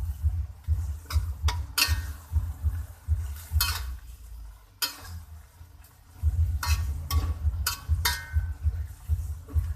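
A spatula scraping and knocking against a pan as chayote is stirred, in sharp irregular strokes over a dull low thudding.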